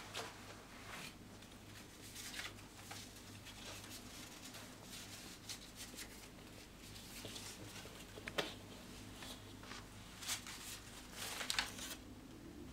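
Soft rustling and crinkling of paper as banknotes and papers are handled at a table, with a few sharper taps, the loudest near the end, over a low room hum.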